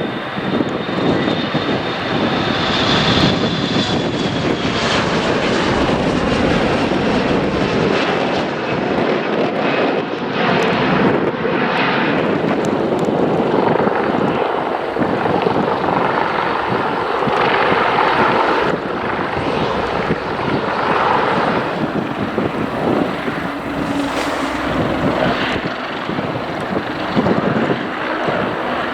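Aircraft engines running loud and steady as a plane passes close by, with a high whine that slides down in pitch over the first few seconds.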